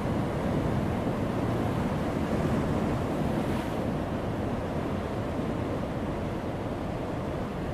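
Heavy ocean waves breaking on a rocky shore: a continuous deep rushing surf, with a brief brighter hiss about three and a half seconds in.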